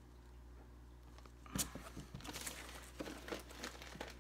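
Plastic fish bags and packing rustling and crinkling as hands dig into a cardboard shipping box, starting about one and a half seconds in, over a low steady hum.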